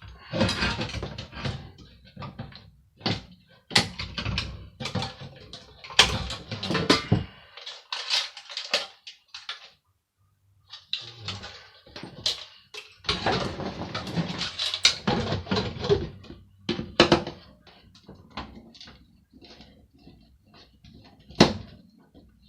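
Hand dismantling of a hand air dryer: irregular knocking, clicking, scraping and rattling of its metal and plastic parts and tools. There is a brief break about ten seconds in, then more of the same handling noise.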